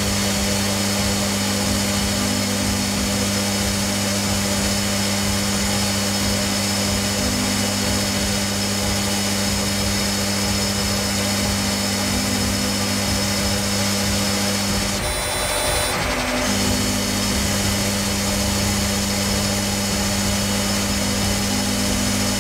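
Metal lathe running steadily, its cutting tool facing a 4140 steel back plate, with a constant motor hum under the cut. The hum breaks off briefly about fifteen seconds in, then resumes.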